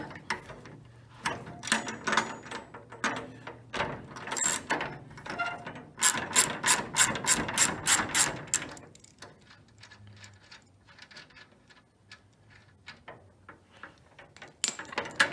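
A socket ratchet clicking as it loosens a 1/2-inch nut on a gun cabinet's steel locking-rod bracket. The clicks are irregular at first, then come in a fast even run of about four a second around six seconds in. After that come fainter clicks of metal parts handled by hand.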